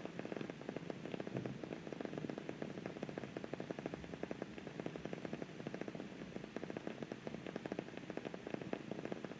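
Steady, dense crackling: many tiny ticks a second over an even hiss, with no change in pace or level.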